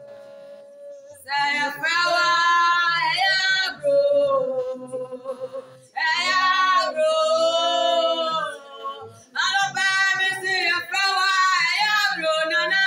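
Women singing a worship song in long held phrases. The singing comes in about a second in and breaks off briefly near six seconds.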